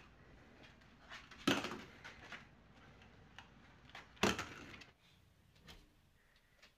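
Light clicking of a dog's claws on a tile floor, with two sharp knocks about three seconds apart.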